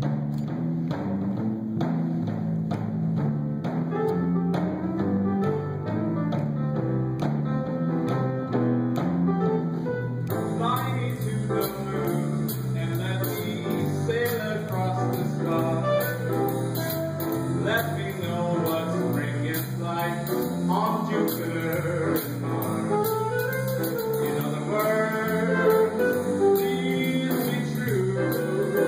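Small live jazz band playing a jazz standard: a stepping bass line under chords, with the drum kit's cymbals coming in about ten seconds in.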